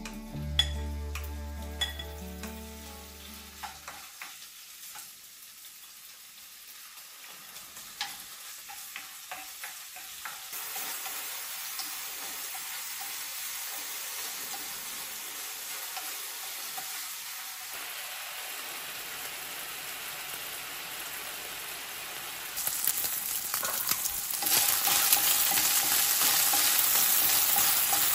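Food sizzling and frying in a hot pan, with a few sharp utensil clicks in the first several seconds. The sizzle gets louder in steps, at about ten seconds and again twice in the last third.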